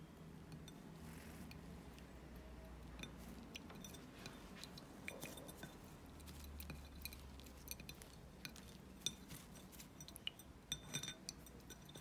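Faint small clinks and taps on a ceramic bowl, with light splashing, as lovebirds bathe in it; the clicks come in scattered runs and grow busier toward the end.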